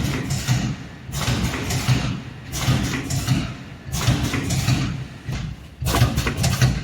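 Two-lane GR320-2 packing machine for powders and granules running, forming and sealing stick packs, sachets or flow-packs. Its working cycle repeats roughly every second and a half.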